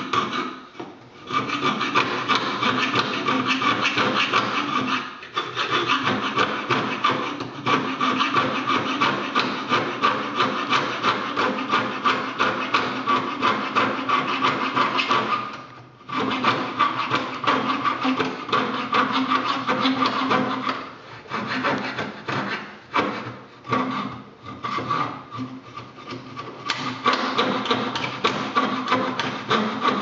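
Coping saw cutting a slot into a thin wooden board by hand, its fine blade rasping through the wood in rapid back-and-forth strokes. The sawing stops briefly a few times, about a second in, near five seconds and near sixteen seconds, and is more stop-and-start for a stretch past the twenty-second mark.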